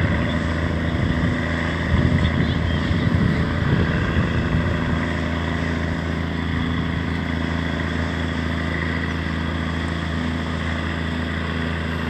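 Steady low engine drone of the Lakeland Queen sternwheel paddle boat pulling away, under a churning wash of water from its paddle wheel, with uneven low rumbling through the first five seconds.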